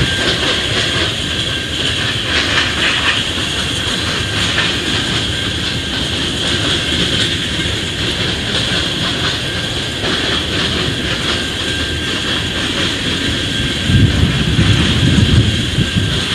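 Long CSX freight train of tank cars rolling past, with a steady rumble of wheels on rail. The low rumble swells louder for about two seconds near the end.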